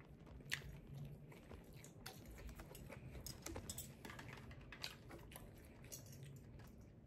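Quiet close-up chewing of rice with many small mouth clicks, and one sharper click of a metal spoon against the glass bowl about half a second in.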